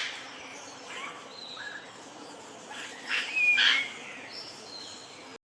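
Wild bird calls over a faint steady background: a few soft chirps, then a louder cluster of calls with a short whistled note about three seconds in.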